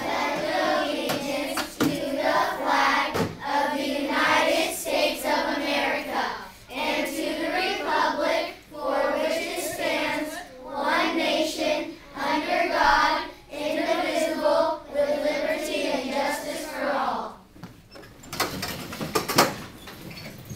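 A class of children reciting the Pledge of Allegiance together, in short phrases with pauses between them. A brief clatter near the end.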